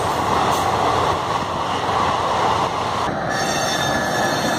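Indian Railways passenger coaches rolling past close by: a steady, loud rush of wheel-on-rail running noise. About three seconds in, this cuts to a train crossing a bridge, with less rush and a faint high whine.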